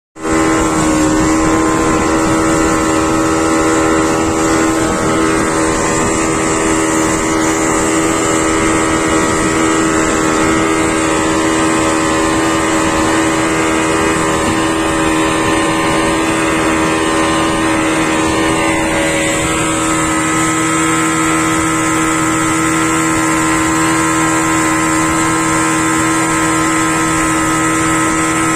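Yamaha 40 hp outboard motor running steadily at cruising speed, driving a small passenger speedboat, with water rushing past the hull and wake.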